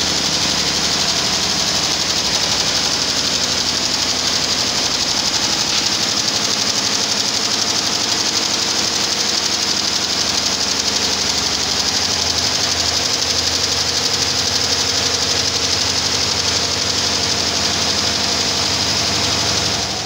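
Tajima multi-head embroidery machine stitching, its rows of needle heads making a fast, steady mechanical clatter with a high hiss over it.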